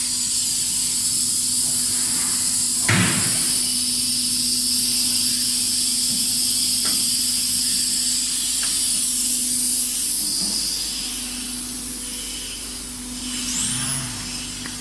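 Dustless wet sandblaster blasting: a steady high hiss of the air, water and abrasive jet with a steady low hum beneath it. A single sharp knock comes about three seconds in, with a few faint clicks later.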